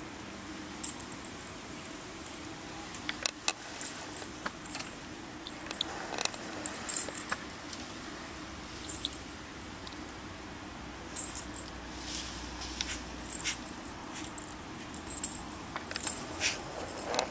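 Metal tags on a dog's collar jingling in short clinks, off and on, as the dog walks and sniffs about in snow.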